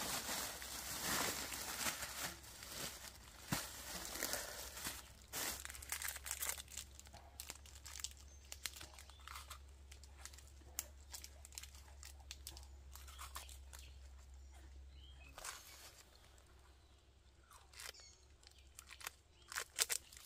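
Rustling of a plastic bag and a woven sack, then a run of short crunching and tearing sounds as a knife cuts and peels bamboo shoots.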